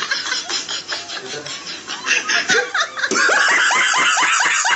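People laughing: a rapid run of short repeated laughs, getting louder and more continuous about three seconds in.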